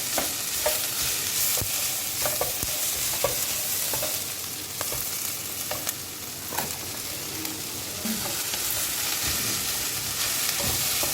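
Cabbage and other vegetables frying in hot oil in a saucepan, with a steady sizzle. A utensil stirring them gives scattered scrapes and knocks against the pan.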